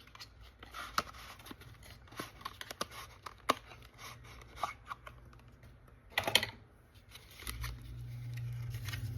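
Cardboard perfume box and packaging being handled and opened: light taps, clicks and rustling, with one louder scraping rustle about six seconds in. A low steady hum comes in near the end.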